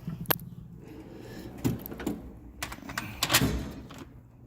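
Metal hand tools being handled in a toolbox drawer: a few separate clinks and knocks, the loudest about three and a half seconds in.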